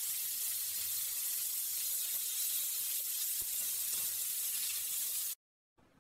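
Lamb chops sizzling in a hot ridged grill pan: a steady high hiss that cuts off suddenly about five seconds in.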